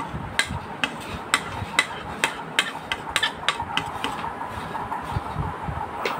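Wire whisk mixing mashed mango into a dry flour batter mix in a glass bowl, its wires clinking against the glass in a regular beat of about two to three clicks a second.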